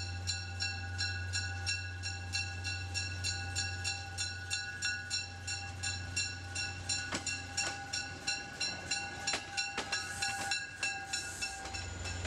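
MBTA commuter train rolling past with a railroad bell dinging evenly about three times a second over a low steady engine hum. A few sharp clicks from the train come through later on.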